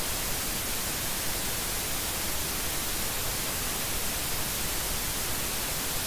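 Steady hiss of static, brightest in the high end, with no other sound.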